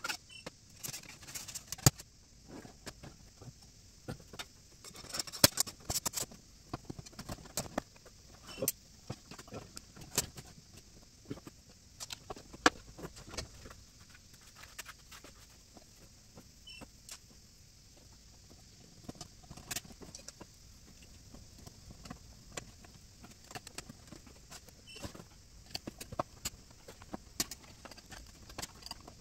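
Scattered clicks, taps and light clatter of thin black battery-case panels and their wiring being handled and fitted together, in irregular bursts with the sharpest knocks about two, five to six, ten and twelve seconds in.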